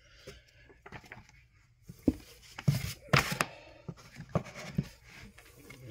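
Comic books being handled in a cardboard box: a string of rustles, light knocks and slides as one comic is set aside and the next is picked out, loudest about two to three and a half seconds in.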